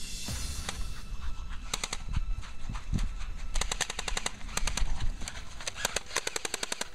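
Bursts of rapid automatic fire, about ten shots a second, with the longest bursts past the middle and near the end.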